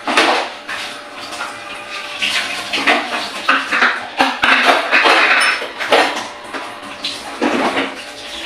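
Dishes, pots and kitchen utensils clattering and clinking irregularly as they are handled at a kitchen counter, with a louder, denser stretch of about a second roughly four and a half seconds in.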